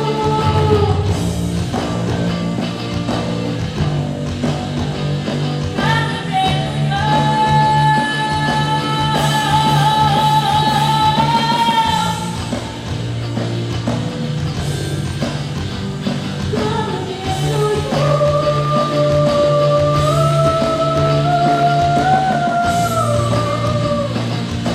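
A rock-style song with a singer over a full band; the voice holds two long sustained lines, one in the middle and one near the end.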